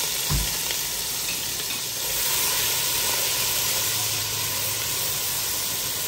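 Chopped onion sizzling steadily in hot oil as a spatula stirs it, with a dull knock near the start.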